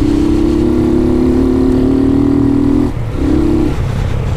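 A 150cc single-cylinder motorcycle engine running under throttle while being ridden, with a steady note that drops out about three seconds in, comes back briefly, then falls to a lower drone. The engine has a knock the rider calls a 'batedeira', which he blames on a worn engine that needs at least a top-end rebuild. He says the knock is masked while accelerating.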